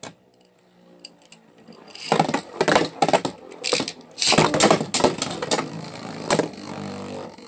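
Beyblade spinning tops launched into a plastic Beyblade stadium: a sharp click, a soft whirr as a top spins, then, from about two seconds in, repeated loud clacks and rattling scrapes as the tops clash with each other and against the stadium walls.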